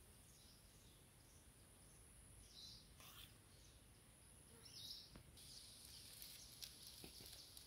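Faint outdoor rural ambience: a few soft bird chirps over a steady, faint high-pitched tone.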